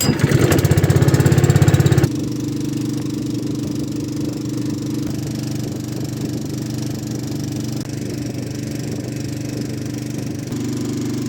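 Boat engine running: a louder, rapidly pulsing stretch for about the first two seconds, then a steady, even hum.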